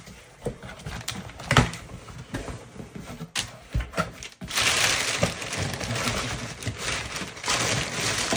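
Telescope box and its packaging being handled and opened: a few knocks and clicks, then, from about halfway, a continuous rustling and scraping of cardboard and wrapping.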